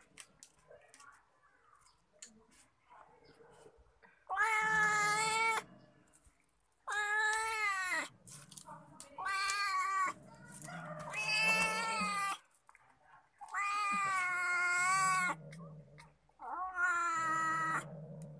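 Domestic cat yowling in six long, wavering calls, with a low growl beneath them, as it eats a rat it has caught. Faint clicks of chewing fill the first few seconds before the yowls begin.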